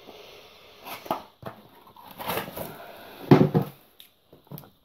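Handling noises as items are moved and picked up off-camera: several knocks and rustles, the loudest a little over three seconds in.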